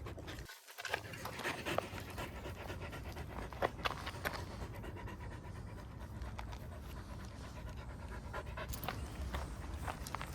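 A dog panting after running, with scattered short clicks and crackles over a steady low rumble.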